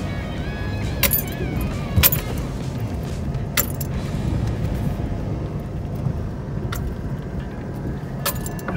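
Four-wheel drive crawling slowly over a rocky track, heard from inside the cabin: a steady low engine and tyre rumble, with sharp rattles and knocks from the vehicle about five times as it rocks over the rocks.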